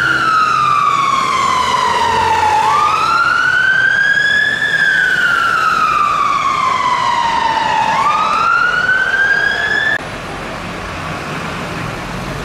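London Fire Brigade Mercedes-Benz Atego fire engine siren sounding a slow wail that rises and falls about every five to six seconds. It cuts off suddenly about ten seconds in, leaving the truck's engine running underneath.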